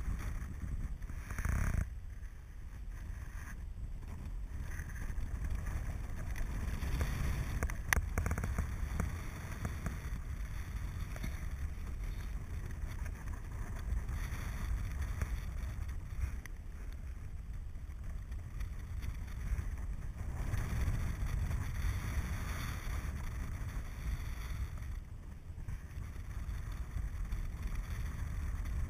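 Wind rushing over the camera's microphone in paraglider flight: a steady low rumble that swells and eases with the gusts, with one sharp click about eight seconds in.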